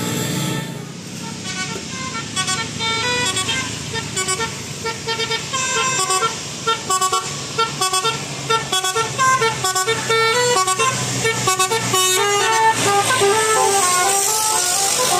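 Telolet multi-tone bus horn playing a quick melody of short stepped notes, ending in a faster, smoother run of notes.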